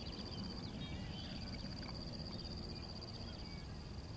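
Open-field ambience: a steady high-pitched insect trill, with scattered short bird chirps and a low rumble of wind.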